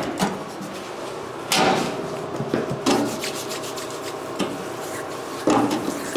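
A metal panel piece scraping and rubbing against the bus's floor structure as it is worked into place, with three louder scrapes.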